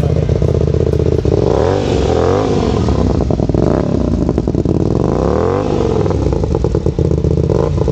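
A parked sport motorcycle's engine is revved up and down several times from idle, its pitch climbing and falling with each blip of the throttle, then it settles back to a steady idle.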